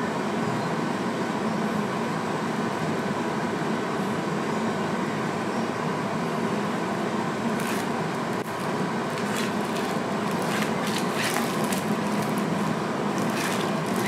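Steady indoor background noise, with a scattering of short clicks and rustles in the second half.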